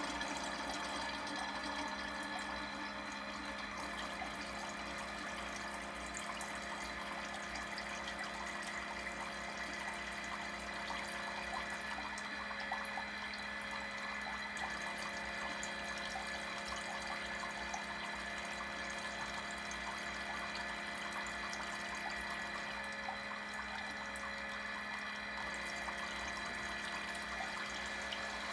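Orenda coffee maker flushing water: water running through the machine over a steady pump hum, with the pump into the brew chamber cutting in for about three seconds roughly every eleven seconds, three times, to keep the chamber from overflowing.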